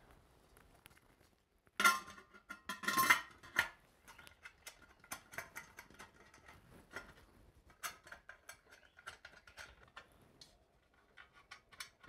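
Glass light globe clinking and scraping against the metal fitter of a brushed-nickel ceiling fixture as it is seated, with the loudest knocks about two seconds in. A run of small clicks and ticks follows as the thumbscrews are turned to hold it.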